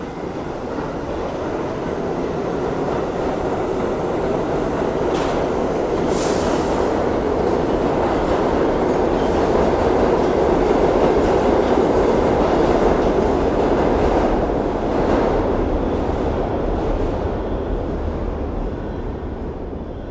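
New York City Subway train running along the far track of an underground station. Its steady rumble builds to a peak about halfway and then fades as it goes. Short high wheel squeals cut through, the sharpest about six seconds in.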